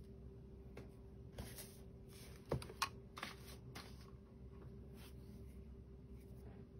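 Faint clicks and rustles of small accessories and a cable being handled on a tabletop, with two sharper clicks about two and a half to three seconds in, over a faint steady hum.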